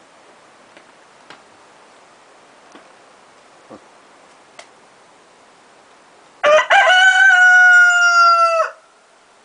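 A rooster crowing once: a loud call of about two seconds, broken at the start and ending in a long held note that sinks slightly. A few faint clicks come before it.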